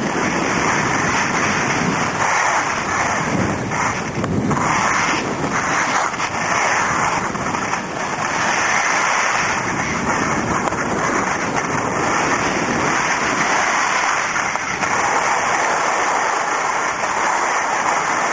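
Steady rushing noise of skiing downhill while filming: skis sliding over the snow, with wind on the microphone.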